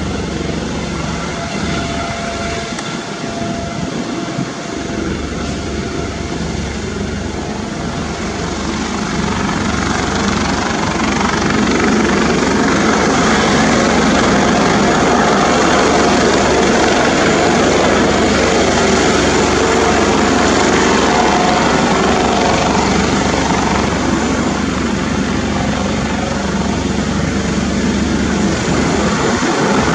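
Eurocopter Dauphin 2 twin-turbine helicopter running during takeoff: a steady rotor and turbine noise that grows louder about ten seconds in and then holds.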